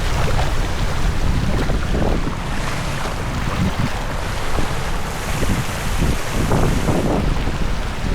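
Wind buffeting the microphone in a steady, loud rumble over the hiss of rushing river water.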